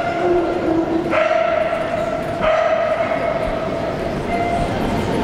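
A dog howling in long, steady-pitched cries, with a new cry starting about a second in and another a little before halfway through.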